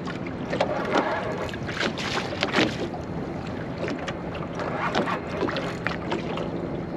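Small waves slapping irregularly against the hull of a small aluminium boat, with wind on the microphone.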